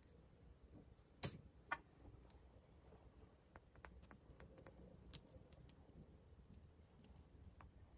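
Faint clicks and taps of makeup containers being handled. Two sharper clicks come a little over a second in, then a run of small ticks in the middle.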